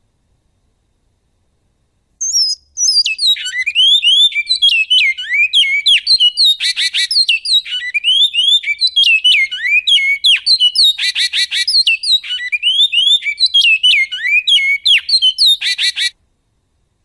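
Great-billed seed-finch (bicudo) singing a long song in the canto goiano style. It is a fast run of clear, slurred whistled notes, broken three times by short buzzy rattles. The song starts about two seconds in and breaks off abruptly shortly before the end.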